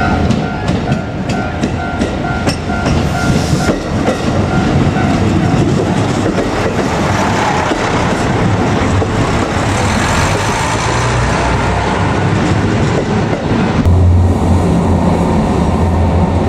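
Japanese level-crossing warning bells ringing in a steady two-tone pulse as a JR Kyushu KiHa 200 diesel railcar passes, its wheels clattering over the rail joints. The bells stop about four to five seconds in and the train's running noise carries on. A deeper low drone sets in near the end.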